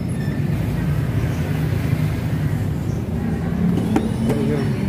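Steady low mechanical hum, like an engine running, with a brief voice about four seconds in.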